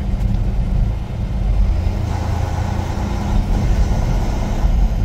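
Semi-truck's diesel engine running under way, heard inside the cab with tyre and road noise. A brighter rushing noise swells from about two seconds in and eases off near the end.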